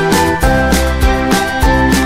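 Background music with a steady beat, a bass line and a melody of short notes.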